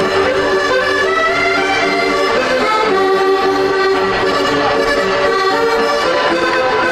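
Instrumental music led by an accordion-like reed sound with fiddle, playing a lively melody of held notes.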